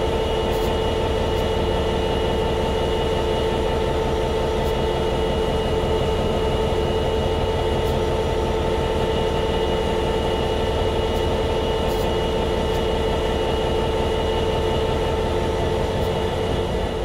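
EMD 12-710G3C-EC turbocharged two-stroke V12 diesel prime mover of an F59PHI passenger locomotive idling, a steady, even low rumble with constant whining tones over it.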